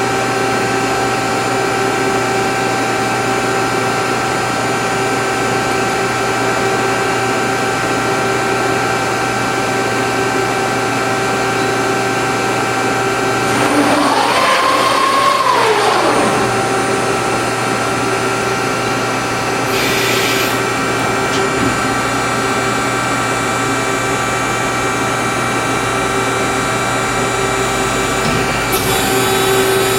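Ermak Speed-Bend hydraulic CNC press brake running, its pump and motor giving a steady hum with several steady tones. About halfway through, a louder pitched whine rises, holds for a second or so, then falls back, and short hisses come near two-thirds of the way through and near the end.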